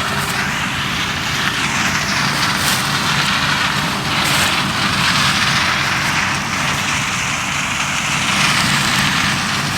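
Claas Lexion combine harvesting corn: its engine and threshing run steadily, with a constant low hum under a loud, broad rushing noise.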